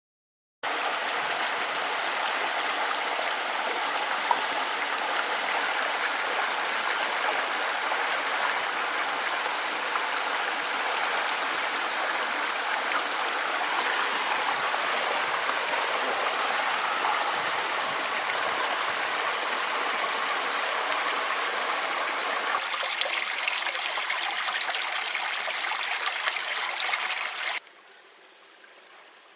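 Creek water rushing steadily. It cuts in suddenly about half a second in, turns brighter and hissier near the end, then drops to a much fainter flow for the last second or two.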